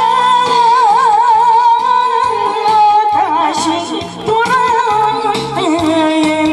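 A woman singing a Korean song through a handheld microphone and PA over a backing track, holding long notes with a wide vibrato.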